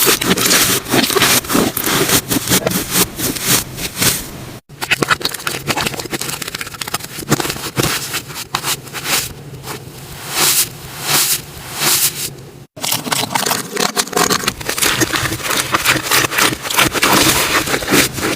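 Slime being squished and stretched by hand, giving dense, irregular crackling and popping. The sound cuts off abruptly twice and starts again.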